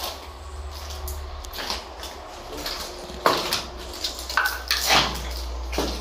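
Irregular clatter of old household objects being handled and knocked about, hard items clinking and rattling, with the loudest knocks a little after three seconds and again around five seconds.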